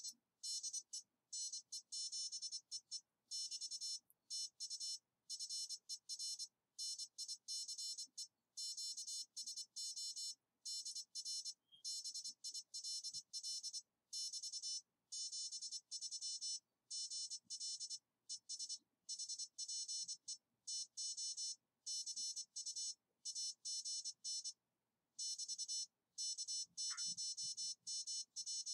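Morse code (CW) sidetone at about 24 words per minute: a high tone switched on and off in dots and dashes. It is sending the closing over of a contact: "TU FER NICE QSO DR BILL = 73 GL ES HPE TO CU AGN" and then the call signs.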